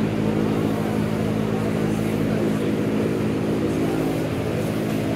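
Steady low mechanical hum holding one constant pitch, without a break.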